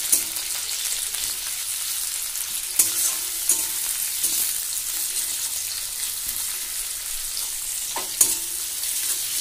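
Sliced onions sizzling steadily in hot mustard oil in a metal kadai, stirred with a metal spatula that scrapes and clinks against the pan a few times, sharpest about three seconds in and near the end.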